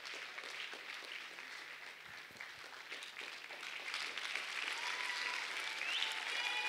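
Congregation applauding, a steady patter of many hands clapping, with a few faint voices rising near the end.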